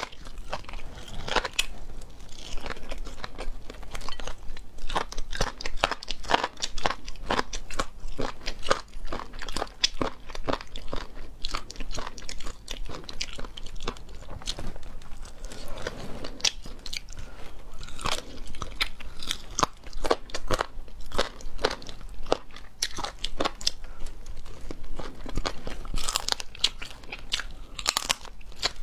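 Close-miked chewing of fried chicken bones and cartilage: a dense, irregular run of sharp, crisp crunches between softer chewing sounds.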